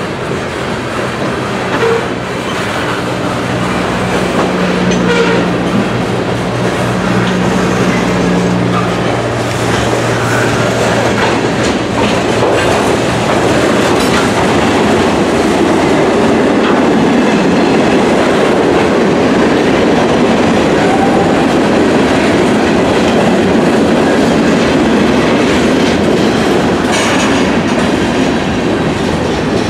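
Freight train cars (autoracks and covered hoppers) rolling past, steel wheels running on the rails in a steady dense rumble with clicks over the rail joints. A low steady hum runs under it for the first third or so, and the rumble grows a little louder after that.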